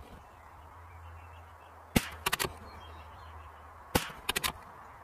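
Savage Mark II bolt-action .22LR rifle firing match ammunition: two shots about two seconds apart, each followed within half a second by three quick sharp clicks, over a steady low hum.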